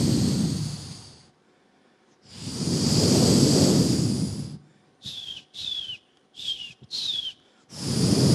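A man making mouth sound effects into a microphone: long breathy whooshing blows that swell and fade, and in the middle four short whistles, each falling in pitch.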